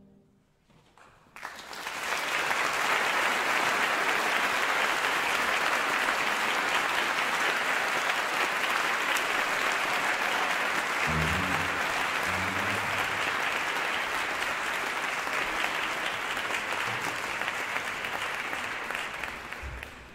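Audience applauding: the clapping starts about a second and a half in, after a brief silence at the end of the music, holds steady, and fades out near the end.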